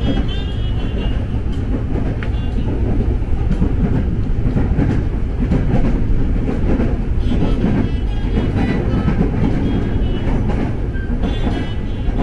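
KRL Commuter Line electric train running on the rails with a steady rumble, and a few brief high-pitched squeals.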